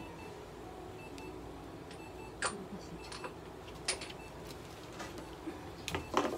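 Quiet treatment room with a few soft clicks and faint short high beeps, then near the end a brief cry from a long-haired mixed-breed cat held on the exam table during light therapy.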